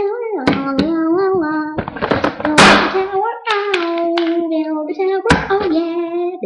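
A boy humming and singing a wordless, drawn-out tune, with plastic toy bricks clicking and knocking as he stacks them, and a brief loud rushing noise a little before the middle.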